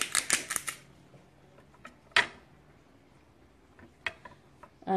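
Hand-twisted salt grinder clicking rapidly as salt is ground over zucchini strips, stopping just under a second in. After that come a few separate light clicks and knocks, the sharpest about two seconds in.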